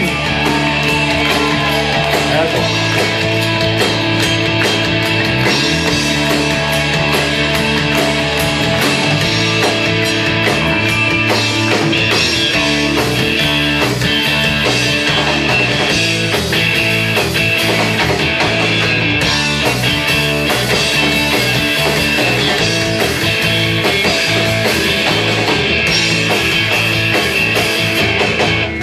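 Rock band playing an instrumental passage live, with no vocals: guitar over bass and a drum kit keeping a steady beat.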